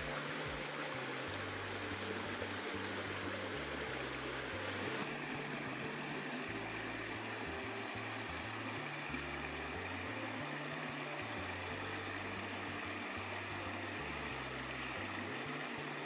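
Steady rushing of running water, like a mountain stream, changing abruptly in tone about five seconds in.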